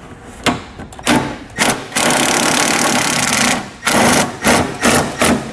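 Power tool spinning a 10 mm socket on an extension, running steadily for about a second and a half in the middle to back out a body bolt. Sharp clicks of the socket and tool come before and after.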